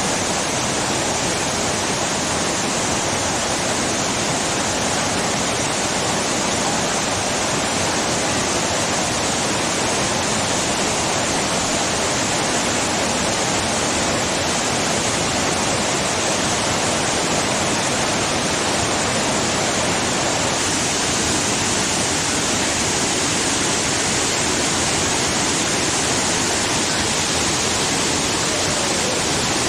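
Steady rushing of a large man-made waterfall, water pouring down into a pool in an even, unbroken hiss.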